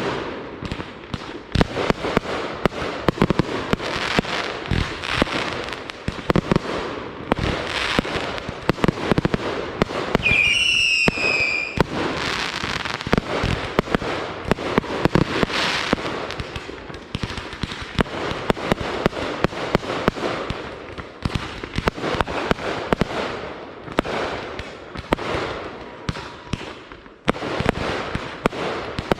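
Consumer fireworks going off in rapid succession: dense crackling and popping with repeated sharp bangs. About ten seconds in, a firework gives a high whistle lasting over a second.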